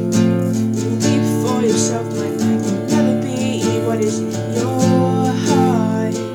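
Acoustic guitar strummed steadily in chords, with a woman's voice singing a melody over it from about half a second in.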